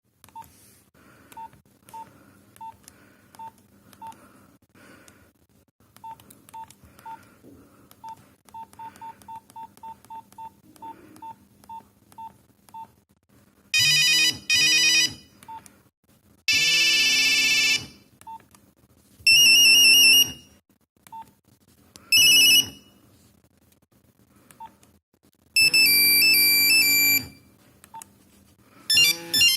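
Nokia 3410 mobile phone: short single key beeps at irregular intervals as its buttons are pressed, then from about 14 seconds a run of loud electronic ringtone previews. Each tune plays for a second or two and then cuts off before the next one starts.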